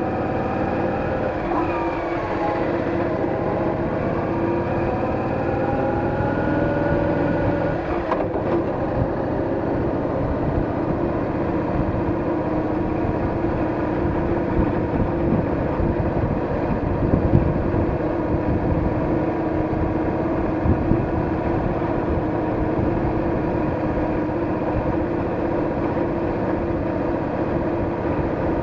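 Cruiser motorcycle engine running at road speed under a low rumble. Its pitch shifts and glides over the first several seconds, then holds steady. A single click comes about eight seconds in.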